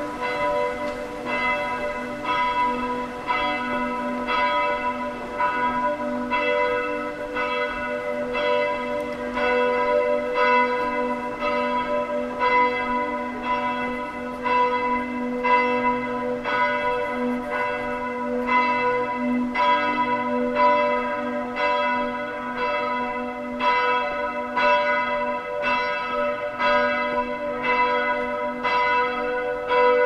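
Several church bells of the Kreuzkirche tower swinging and ringing together in a continuous peal, their strokes overlapping in a steady stream of different pitches, each note ringing on.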